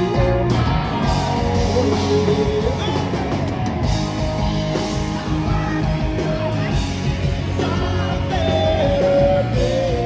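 Live rock band playing: two electric guitars, bass guitar and drums, with singing over them.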